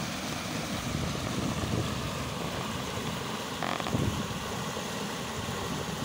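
Mountain stream rushing over rock in a small cascade: a steady noise of running, splashing water.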